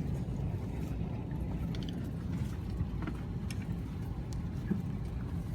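Steady low rumble of an Airbus A321neo's cabin, the aircraft's ventilation and engine noise, with a few faint ticks.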